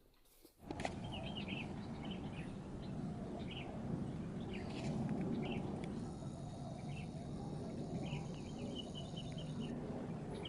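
Small birds chirping repeatedly over a steady low outdoor background noise. The sound cuts in abruptly just under a second in.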